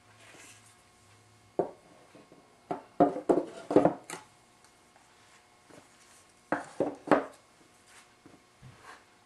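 Wooden bubinga hand planes being set down into a wooden tool tote, knocking and clunking wood on wood: one knock about a second and a half in, a quick cluster of clunks around three to four seconds, and a few more near seven seconds.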